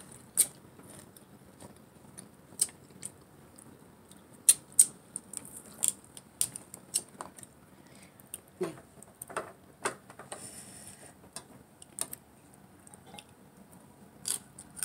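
Irregular sharp clicks and snaps as fingers break up fresh greens and tamarind pods, with a short rustle about ten seconds in.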